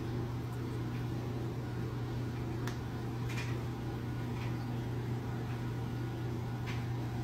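Steady low hum of a mini projector's cooling fan running, with three faint clicks.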